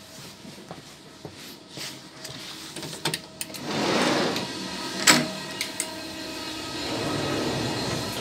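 Inside an NMBS I10/I11 passenger coach on the move: the train's running noise, with footsteps and light knocks, a hissing swell about four seconds in and a sharp click about a second later. The train noise rises again near the end.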